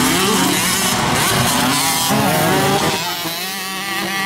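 Several motocross dirt bikes racing, their engines revving up and down with overlapping rising and falling pitches. The engines ease off briefly near the end.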